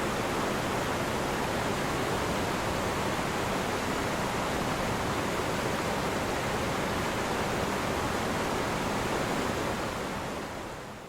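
Merced River water rushing in a steady, dense roar that falls noticeably quieter near the end.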